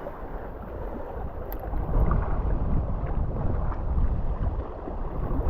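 Wind buffeting the microphone on the seashore, a low, uneven noise that grows louder about two seconds in.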